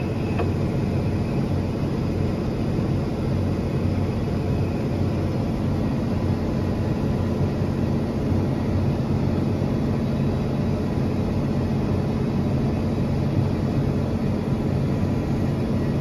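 Steady drone of a tracked tractor's engine and running gear, heard from inside its cab as it drives across the field at an even pace.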